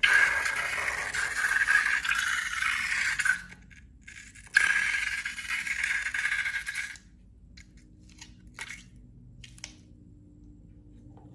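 Scraping, rattling noise of slime-making materials being handled in a container, in two stretches of about three seconds each with a short pause between, followed by a few faint clicks.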